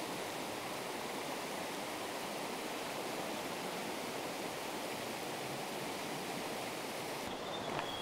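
Mountain stream water running steadily over rocks, an even rushing wash. About seven seconds in the hiss abruptly thins.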